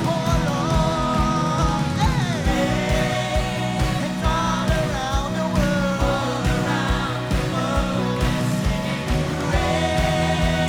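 Live worship band playing a rock-style song: a steady kick-drum beat under bass and guitars, with a sung melody over it.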